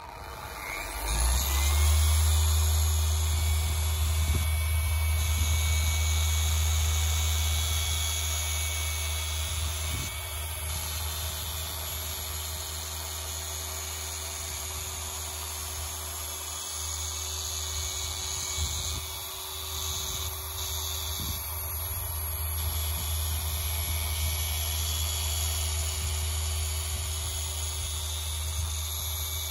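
Rupes LHR12E random orbital polisher, fitted with a small 80 mm backing plate and foam pad, starting up about a second in with a rising whine. It then runs steadily with a low hum as it works over car paint, a little quieter after about ten seconds.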